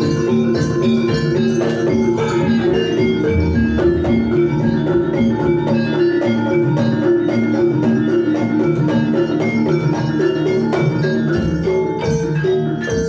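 Javanese gamelan playing jaranan dance music: mallet-struck metal keys in a steady, fast repeating pattern over drumming, amplified through loudspeakers.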